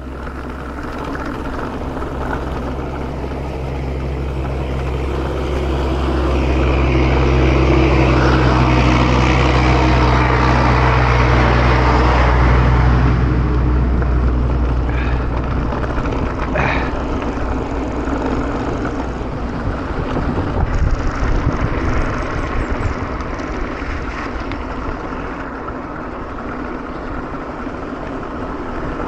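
Wind rushing over the camera microphone and mountain bike tyres rolling on a concrete track during a downhill ride: a continuous rushing rumble that grows louder through the first half, then eases, with one sharp knock about sixteen seconds in.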